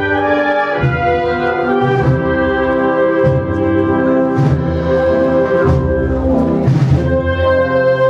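A Holy Week wind band (banda de música) playing a processional march: brass holding full chords over a bass drum beating about once every second and a bit.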